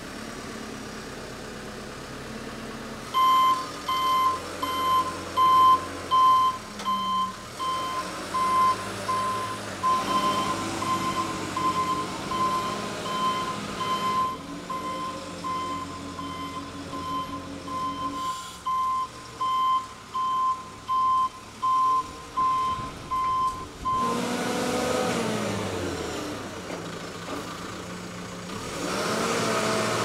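JCB telehandler's reversing alarm beeping steadily, one repeated tone, over its diesel engine running. The beeping stops a few seconds before the end and the engine revs up and down.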